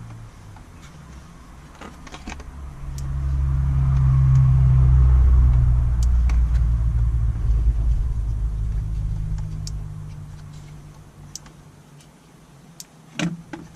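Deep rumble of a passing vehicle, swelling over a few seconds and then fading away. Near the end come a couple of sharp plastic clicks as an accessory switch is pushed into the dashboard switch panel.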